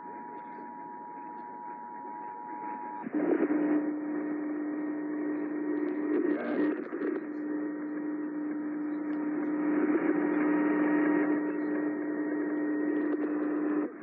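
Emergency Alert System two-tone attention signal heard through an AM radio's speaker: two steady tones sounding together, cutting off suddenly about three seconds in. A steady low hum with radio static follows.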